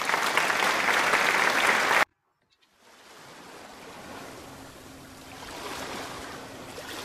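Applause sound effect, cut off abruptly about two seconds in. After a short silence a soft, steady wash of ocean waves fades in and runs on.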